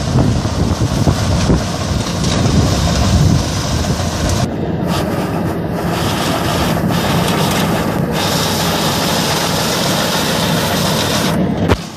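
SAME tractor's diesel engine running steadily under load, driving a front-mounted reaper binder as it cuts and ties standing wheat.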